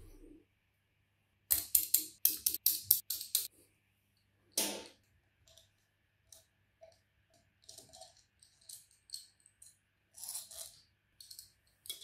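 Sharp metallic clicks and clinks from an electric motor and a nut driver being handled while the motor's end-cover bolts are loosened. A quick run of clicks is followed by one longer clink, then lighter scattered clicks.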